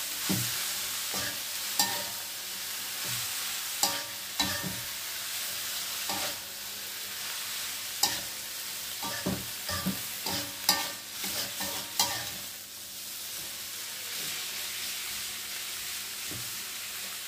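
Sliced mushrooms sizzling as they are stir-fried in a metal wok, with a metal spatula scraping and clinking against the pan at irregular intervals. The spatula strokes thin out over the last few seconds while the sizzle carries on.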